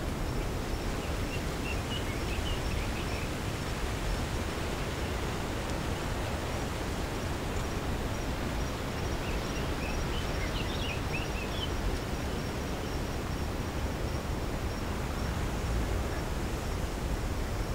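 Steady wind noise with a low rumble, and a few faint bird chirps about a second in and again around ten seconds.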